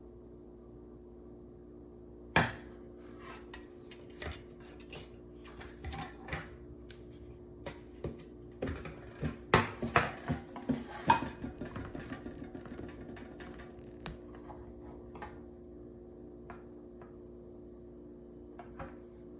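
Kitchenware clinking and knocking: scattered sharp knocks of cups and utensils being handled, thickest around ten seconds in with a quick run of fading ticks after, over a steady low hum.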